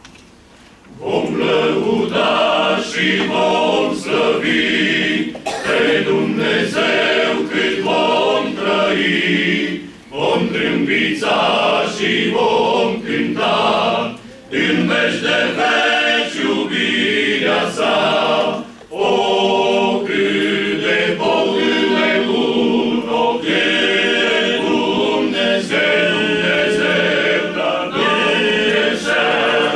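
Men's choir singing a hymn a cappella, starting about a second in, with short breaks between phrases.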